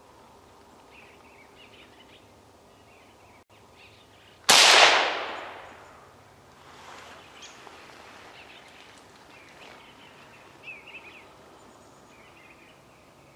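.22 Magnum rifle shot about four and a half seconds in: one sharp, very loud crack whose echo fades over about a second and a half. Small birds chirp faintly before and after it.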